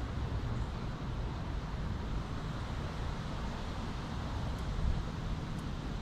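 Steady low rumble of outdoor background noise, in the manner of distant traffic, with two faint small clicks near the end.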